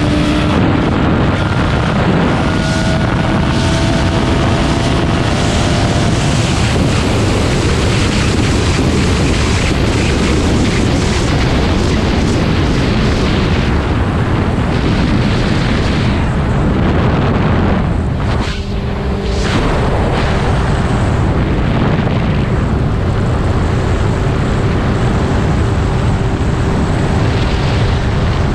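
Heavy wind rushing over the microphone of a 2005 Suzuki GSX-R600 being ridden at speed. The inline-four's engine note runs faintly underneath, with a brief dip in the noise about two-thirds of the way through.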